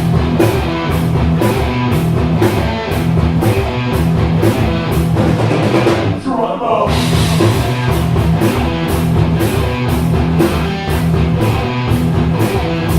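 Rock band playing live, with guitar and a driving drum-kit beat. The drums drop out briefly about six seconds in, then come back.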